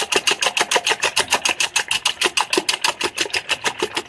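Eggs being beaten by hand in a bowl: a fast, even clicking of the utensil against the bowl, about nine or ten strokes a second.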